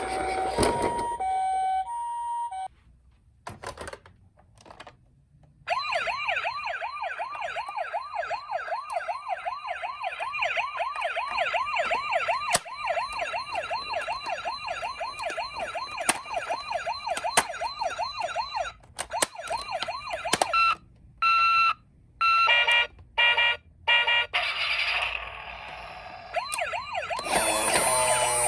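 Electronic sirens of toy ambulance minicars sounding one after another. First a two-tone hi-lo siren for a couple of seconds, then a fast warbling siren for about thirteen seconds, then a short run of rapid on-off beeps, and another siren starting near the end. Occasional small clicks are heard throughout.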